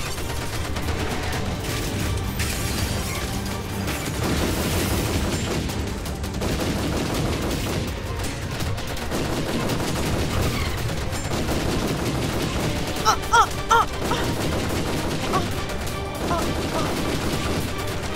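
Rapid, continuous gunfire over background music.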